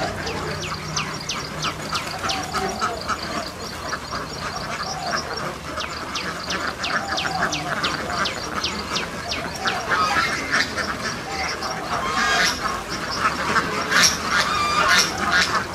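A large flock of white domestic ducks quacking together in a dense, unbroken chorus, growing louder over the last few seconds.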